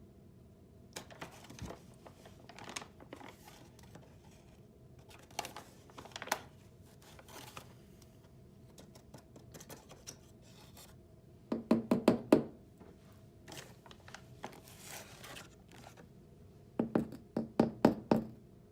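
A tablespoon scooping and scraping black iron oxide powder in a container, with scattered clicks and scrapes. Twice, around the middle and near the end, there is a quick run of about six knocks.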